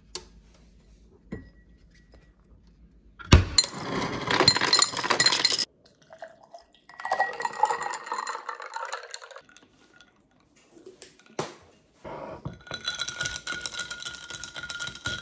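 Glass taken from a cabinet, then ice cubes clattering into the tall drinking glass, followed by cold coffee poured over the ice. After a click, a second liquid is poured in as the glass fills.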